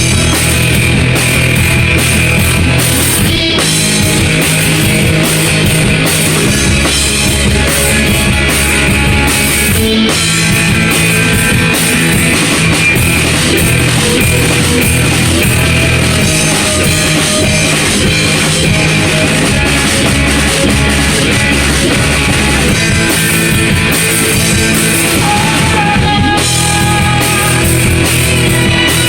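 A rock band playing loud and steady, with a drum kit, guitars and bass.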